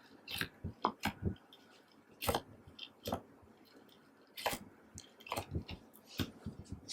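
Hands squishing and kneading slime, giving a run of irregular short clicks and pops.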